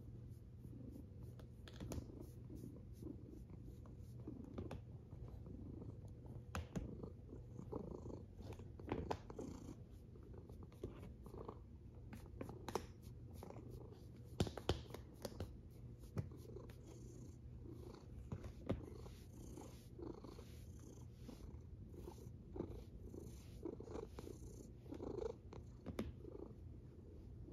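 Domestic cat purring steadily close to the microphone, under frequent short rustles and clicks from a hand rubbing through its fur.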